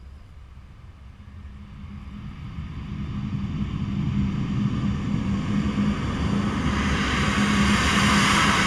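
Airbus A350-900's twin Rolls-Royce Trent XWB turbofans running at taxi power as the airliner approaches: a low rumble and a rising high whine and hiss that grow steadily louder, loudest near the end as it draws close.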